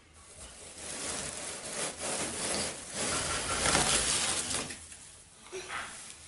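Artificial Christmas tree branches rustling and scraping against a cardboard box as the tree is pulled out of it, a busy scratchy rustle that dies down after about four and a half seconds.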